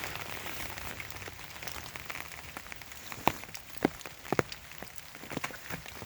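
Raindrops pattering on an umbrella, with a steady hiss of rain and scattered louder single drops striking the canopy, several of them from about three seconds in.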